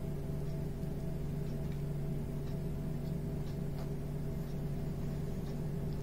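Steady electrical hum from an appliance or motor, a low drone with a few fixed higher tones, with faint short high ticks now and then.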